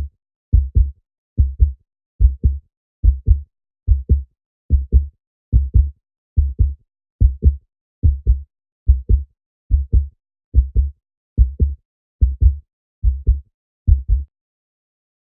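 Heartbeat sound effect: steady low lub-dub double beats at about 70 a minute, stopping near the end.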